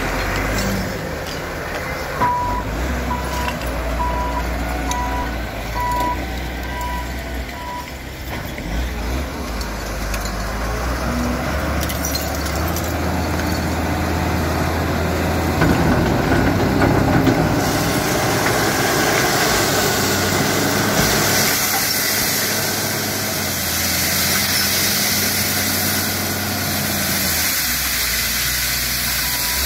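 LOVOL FL936H wheel loader's Weichai diesel engine running under work, with its reversing alarm beeping about twice a second for several seconds near the start. The engine revs up about halfway through.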